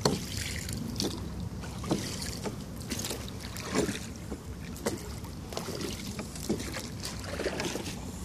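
Small wooden rowing boat being rowed: oar strokes splash and knock about once a second over a steady low rumble of wind on the microphone.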